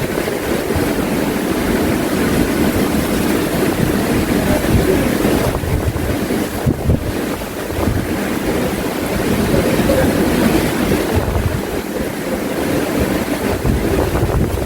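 Wind buffeting the microphone over a steady rush of surf.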